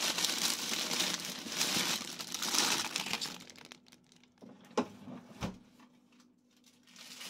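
Thin plastic produce bags crinkling and rustling as a hand rummages through vegetables in a fridge crisper drawer. After that come two sharp knocks, the second with a dull thud, as the drawer is pushed shut.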